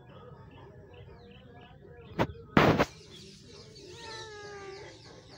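Two sharp knocks a little over two seconds in, the second a bit longer, then near the end a drawn-out animal call falling slightly in pitch, over faint bird chirps.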